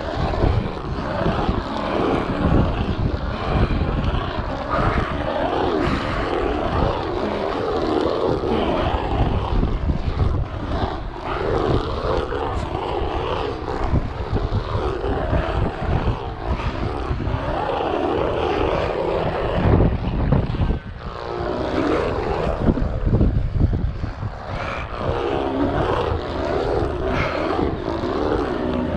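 Wind in a steady 14 mph sea breeze buffeting the microphone of a GoPro, a continuous gusty rumble that eases briefly about two-thirds of the way through.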